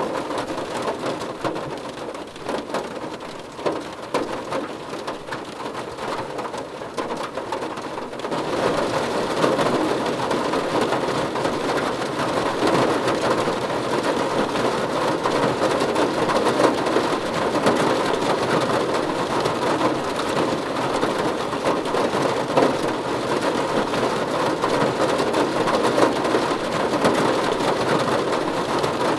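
Steady rain falling on a surface, a continuous even hiss of drops. It grows heavier and louder about eight seconds in.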